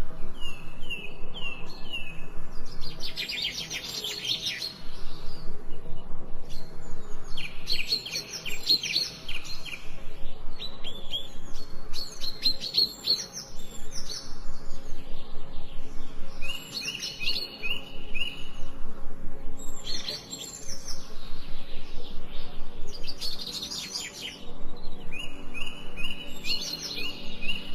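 Songbird singing in repeated phrases every few seconds: dense runs of quick chirps alternating with short strings of falling whistled notes, with brief pauses between phrases. A faint low steady drone runs underneath.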